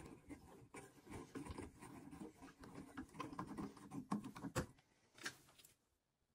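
Cartridge puller being turned on a Moen shower valve cartridge: faint, irregular scraping and clicking of the metal tool and brass stem, with one sharper click about four and a half seconds in. It stops near the end.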